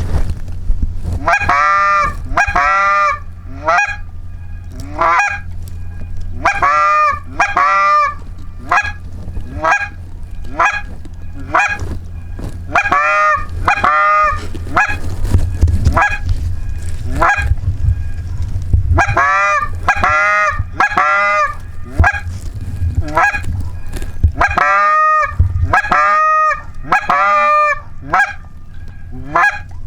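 Geese honking over and over, in quick runs of two or three calls, over a steady low rumble.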